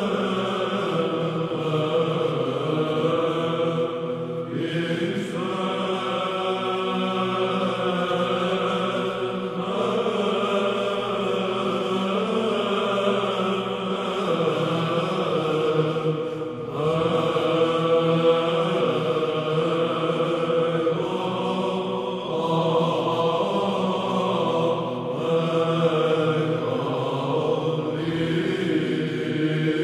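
Greek Byzantine men's choir chanting a hymn in the Plagal 2nd tone. The voices hold long notes that shift every few seconds over a steady low drone.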